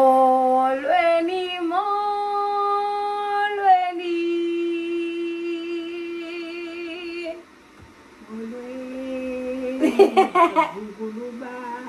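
A woman singing long held notes, the pitch stepping up twice and then holding one note for several seconds. After a short pause comes another low held note, then laughter about ten seconds in.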